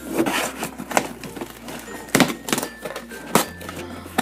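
Cardboard shipping box being handled and its flaps pulled open: a string of knocks, taps and scrapes of cardboard.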